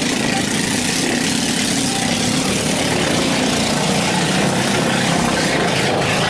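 ATV (quad bike) engines idling and running steadily, a rough low drone that holds at an even level.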